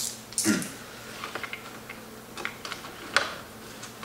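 Scattered light clicks and ticks of a socket ratchet tightening the negative battery terminal nut with a 10 mm socket.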